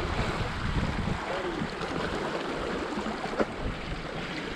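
Small waves washing and lapping against the rocks at the water's edge, with wind rumbling on the microphone for about the first second. A single sharp click comes about three and a half seconds in.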